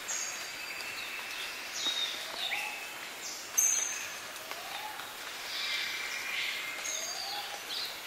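Morning bird chorus in Queensland highland rainforest, with several birds calling over a steady background hiss. A short rising call repeats every second or two among thin high whistles, and a sharp high note sounds about halfway through.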